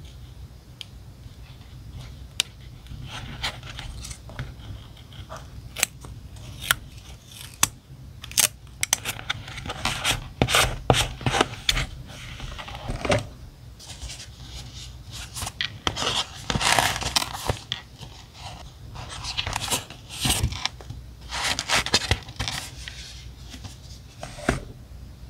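Close-up paper and stationery handling for diary decorating: many sharp clicks and taps, with longer rasping stretches of paper rubbing and scraping, busier from about a third of the way in.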